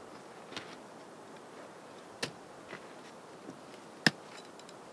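A hiker's boots and trekking poles on rocky ground: a few scattered sharp clicks and scrapes over a low hiss, the sharpest about four seconds in.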